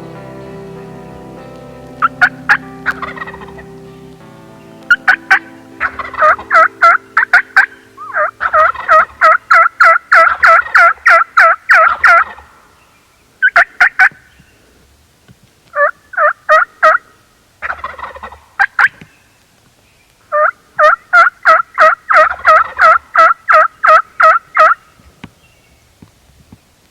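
Turkey yelping: runs of sharp, raspy notes at about four to five a second, several series with short gaps, the longest lasting about four seconds. Steady background music fades out during the first few seconds.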